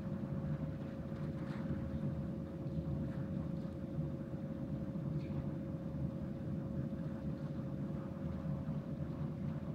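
Steady low rumble with a constant mid-pitched hum from the ventilation of a large sports hall, unchanging throughout.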